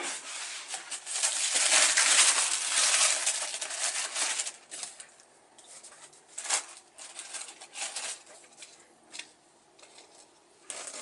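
Handling noise from GULL felt-sole diving boots being handled. A dense rustle runs for the first four seconds or so, then short scattered rustles and taps follow.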